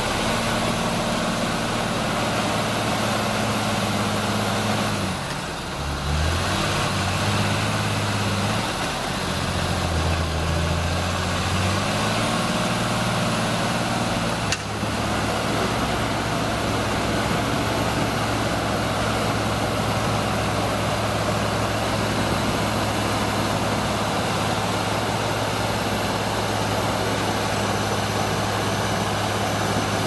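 Heavy diesel machinery running: the engines of a forestry tractor and an excavator working close by. The engine note shifts up and down between about five and fifteen seconds in, with a short click at the end of that stretch, then runs at a steady pitch.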